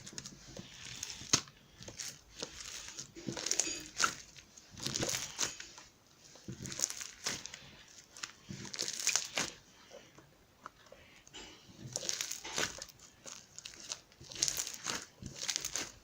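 Slime being squeezed, folded and stretched by hand, giving irregular bursts of crackling and popping clicks every second or two.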